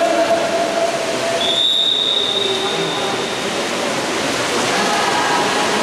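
Steady wash of crowd and water noise echoing in an indoor pool hall, with voices calling. About a second and a half in, one long, steady, high whistle blast sounds for about two seconds, most likely the referee's whistle.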